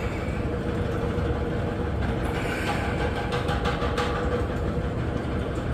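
Steady mechanical hum with a low rumble and a steady tone, and a few light clicks about two to four seconds in.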